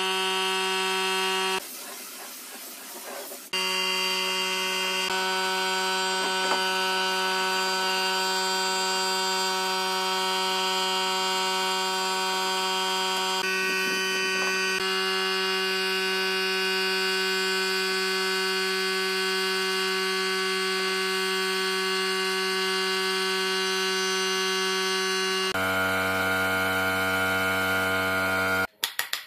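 Handheld electric paint spray gun buzzing steadily while spraying finish onto wood, its pitch shifting abruptly a few times. About two seconds in it gives way briefly to a quieter hiss, and a few sharp knocks come right at the end.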